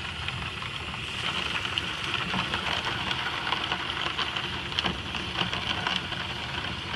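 Plastic keyboard keycaps being scrubbed in a bucket of soapy water: steady sloshing with many small clicks as the keys knock together.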